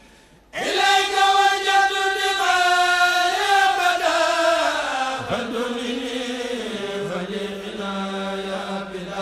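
A group of men chanting an Arabic devotional poem in unison, entering abruptly about half a second in after a brief pause. They hold long notes, and the line steps down in pitch about halfway through.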